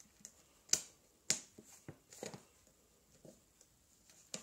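A few short, sharp crackles from a plastic bag of dry cat food being handled.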